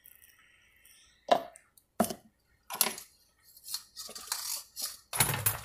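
A long-handled spoon clinking three times against an enamelled steel stockpot, then scraping and stirring inside it, with a heavier knock near the end.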